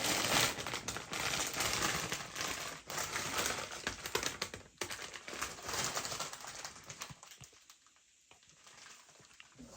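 Plastic chocolate wrappers and packets crinkling and rustling as they are handled and pulled out of a box, with many sharp crackles; it dies down about seven seconds in.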